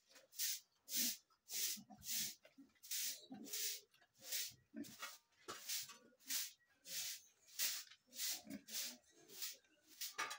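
Large White boar snuffling with its snout at the floor: a regular series of short, hissy nose breaths, about one and a half a second, with faint low grunts between them.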